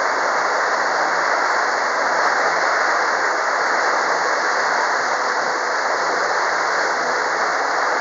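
Steady rush of water churned up in the wake of a motor yacht under way, with a faint low hum underneath.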